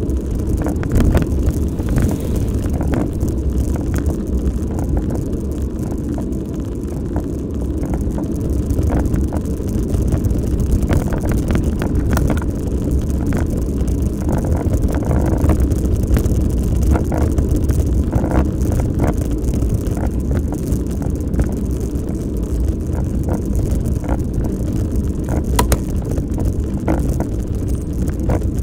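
Wind rushing over the microphone of a moving bicycle, with tyres rumbling on a tarmac lane and scattered clicks and rattles from the bike over bumps.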